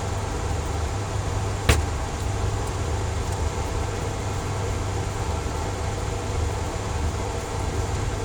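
Steady hum and rushing air of a clean-air cabinet's blower fan, with one sharp click about two seconds in.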